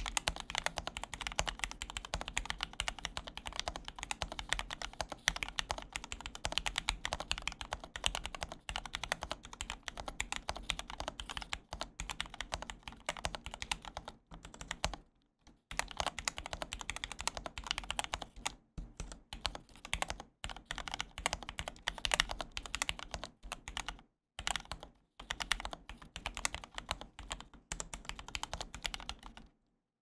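Fast, continuous typing on a MechWild Mercutio40 40% mechanical keyboard with Gateron Milky Yellow linear switches, an FR4 plate and GMK keycaps: a dense stream of keystroke clacks, with a break of about a second halfway through and a few shorter pauses later.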